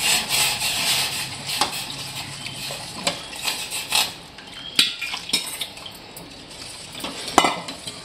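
Long stainless steel ladle stirring ragi porridge in a stainless steel saucepan, clinking and scraping against the pot in irregular strokes, as ragi-flour slurry is poured into the boiling water to keep it from forming lumps. A pouring hiss is heard in the first second.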